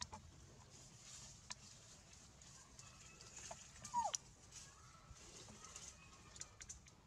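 A single short animal call about four seconds in, falling in pitch, over faint outdoor background noise with a few scattered light clicks.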